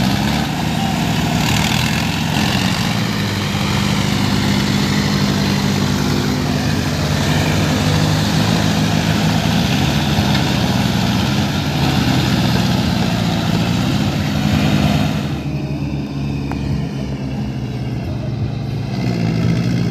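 Diesel tractor engines running hard under heavy load, their pitch wavering up and down as a chain of tractors tows a Farmtrac 60 out of deep mud. A high hiss over the engines drops away about 15 seconds in.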